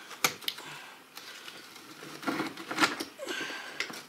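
Sharp metal clicks and scrapes of hand tools working on a LUAZ 969M portal hub as its housing lid is worked loose: a few clicks in the first second and a cluster more a little past halfway.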